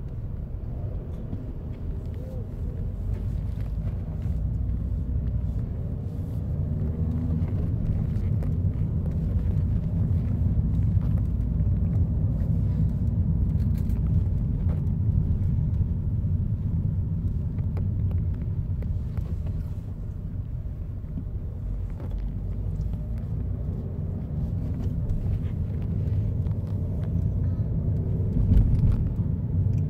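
Steady low rumble of a car being driven, engine and road noise heard from inside the cabin, with a brief louder bump near the end.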